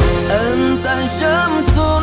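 Background pop music with a sung melody over a steady beat.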